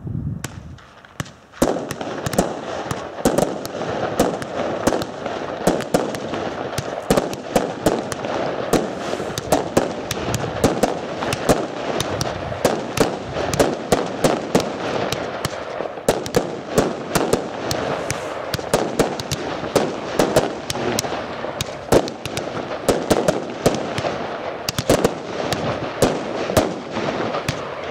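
Fireworks going off in a continuous rapid barrage: dense crackling with many sharp bangs a second, starting about a second and a half in and thinning out near the end.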